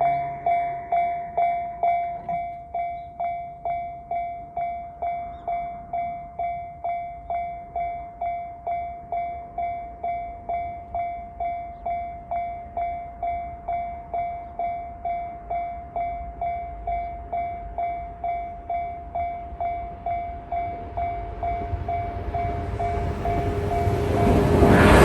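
Japanese level-crossing alarm (JR-type electronic warning sound) ringing about twice a second. It drops in volume about two seconds in, as this alarm does once all the barriers are down. An approaching train's noise swells over the last few seconds.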